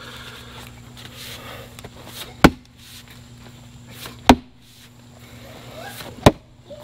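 Steel splitting axe striking a big, knotty oak round three times, about two seconds apart, each a sharp chop into the end grain; the round does not split.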